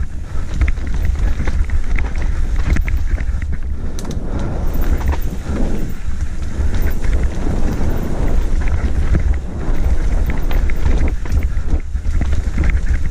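Wind buffeting a helmet-mounted camera's microphone, over the rattle and knocks of a mountain bike and its tyres rolling on a dirt trail during a fast descent. Short clatters come thick and irregular as the bike runs over roots and bumps.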